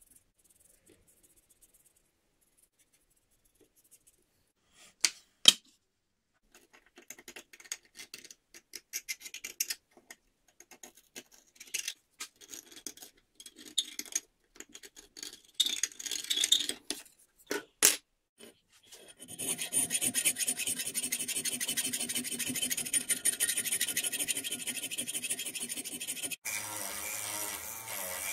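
Hand-tool scraping and scratching strokes on the steel cleaver blade, uneven and in short runs, after two sharp clicks. About two-thirds of the way through, a power tool starts running steadily. Near the end the sound changes to a spindle sander running with its sanding drum in the cleaver's round hole.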